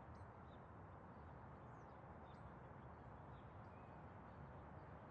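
Near silence: a faint steady low hum, with faint, scattered high bird chirps in the background.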